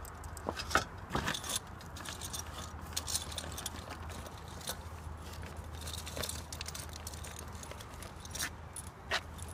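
Small metal fittings (screws and bracket hardware) clinking and jingling as they are handled and sorted, with scattered light clicks and knocks, over a steady low hum.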